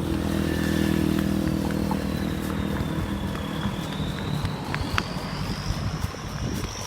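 A motor vehicle's engine running close by, strongest in the first two seconds and then fading as it passes. A faint high whine dips in pitch and then rises again.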